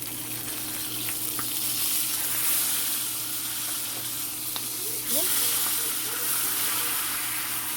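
Marinated milkfish frying in hot oil in a pan, a steady sizzle with a couple of sharp pops.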